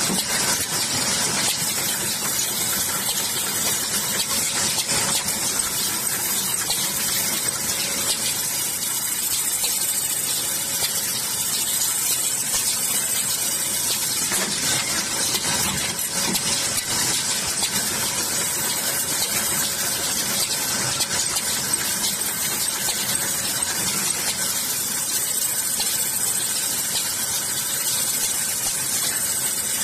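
Paint-brush handle sanding machine running: a spinning sanding wheel grinding steadily against wooden handles, a continuous hiss over a faint steady motor hum.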